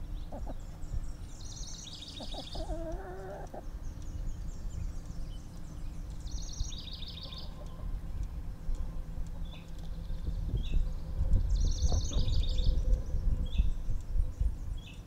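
Chickens clucking as they forage, one giving a short drawn call about two seconds in. High, rapid trills from other small birds come and go several times over a low rumble that grows louder in the last few seconds.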